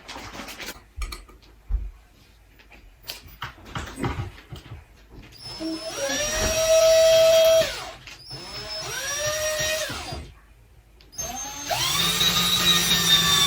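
Power drill driving screws to fasten a ceiling-fan mounting bracket. It makes three runs of about two seconds each, the motor whining up to speed each time. Small knocks and handling clicks come first.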